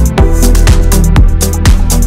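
Loud background electronic dance music with a steady beat, about two bass-drum hits a second.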